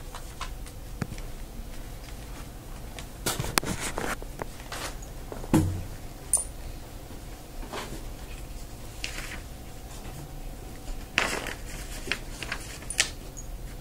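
Irregular soft scraping and rustling of a calligraphy brush and hand moving over rice paper, with a few louder scratchy strokes and a low thump about five and a half seconds in, over a steady low room hum.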